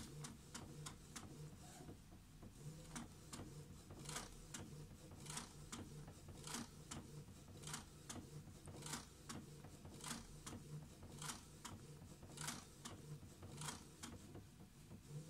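HP DeskJet 720C inkjet printer printing its head-alignment check pattern: the print carriage shuttles across with a low motor hum and a short swish or click about once a second.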